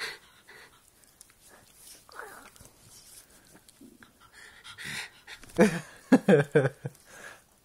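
A jug (pug and Jack Russell cross) making play-fight noises: panting and snuffling, then a run of loud, short grumbling growls a little past halfway.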